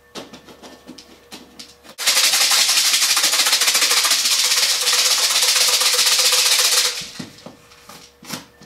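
Crushed dry cat food rattling hard inside a small lidded plastic cup as it is shaken to mix, a fast steady rattle that starts about two seconds in, lasts about five seconds and stops abruptly. Light handling clicks and knocks come before and after it.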